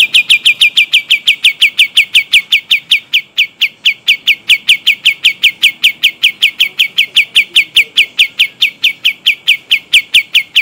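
Kapas tembak bird singing a long rolling trill: an even, rapid string of about five high, downward-slurred notes a second, unbroken throughout.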